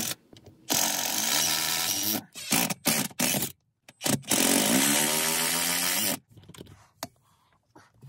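Cordless drill-driver driving screws through a steel ceiling-fan brace into a wooden floor joist. There are two runs of about one and a half and two seconds, each rising in pitch as the motor spins up, with a few short trigger bursts between them.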